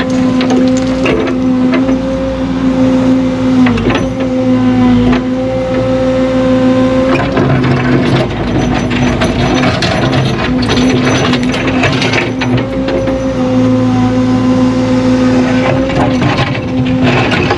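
Heavy earthmoving machine's engine running steadily while grading, its pitch sagging briefly about four seconds in, about seven seconds in and again near the end as it takes load. Metal clanks and rattles of the machine working sound over it.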